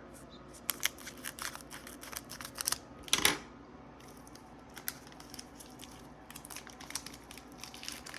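Pokémon trading cards and their foil pack wrappers being handled: a run of small clicks and rustles, with a louder rustle about three seconds in.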